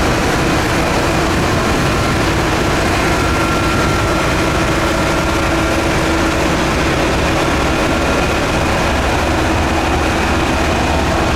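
Heavy diesel road-building machinery running steadily, a loud constant engine noise with a faint steady hum over it.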